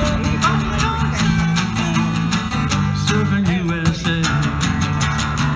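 Acoustic guitar strummed in a steady, even rhythm, with held low notes underneath.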